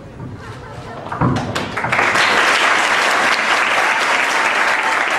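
A hall full of people applauding: a few scattered claps about a second in, swelling into steady applause by about two seconds.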